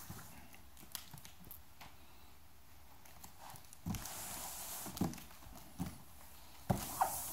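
A large cardboard box handled and tipped over onto carpet: faint taps and rubbing of hands on the cardboard, then a few soft, dull thumps in the second half as it is laid down.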